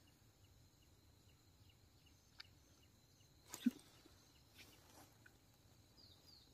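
Near silence, with a few faint short sounds: a click, then a brief louder blip about three and a half seconds in, and a run of faint high falling chirps near the end.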